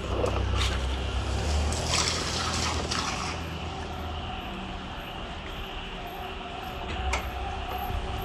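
Motor oil pouring out of plastic bottles and trickling through a funnel into a car engine's oil filler. A low rumble sits underneath, and a steady hum comes in about six seconds in.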